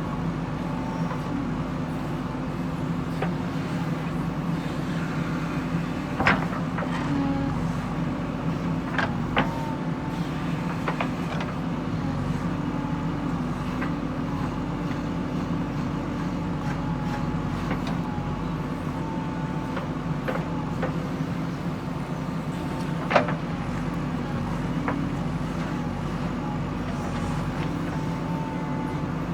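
JCB 3DX backhoe loader's diesel engine running steadily while working, with a few sharp knocks, the loudest about twenty-three seconds in.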